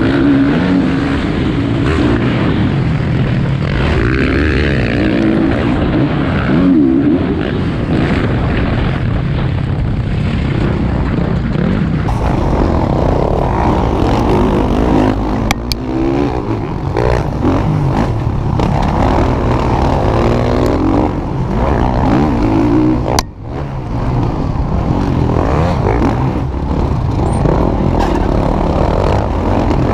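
Motocross bikes riding a dirt track, their engines revving up and easing off again and again.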